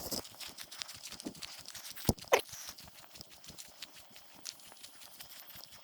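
Footsteps crunching through dry leaves and brush, with irregular crackles and a sharp snap, like a twig breaking, about two seconds in.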